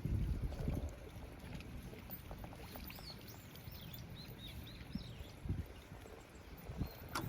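Paddy water swishing and sloshing as a weeding chain is dragged through a flooded rice field, with a low rumble in the first second. A bird chirps a quick run of notes about halfway through.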